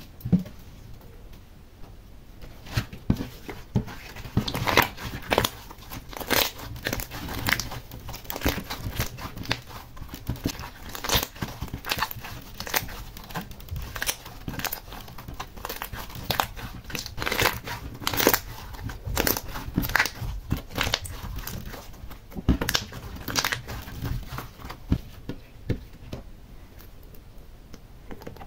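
Slime being stretched, folded and kneaded by hand, giving off irregular sharp pops and crackles that come thickest in the middle and thin out near the end.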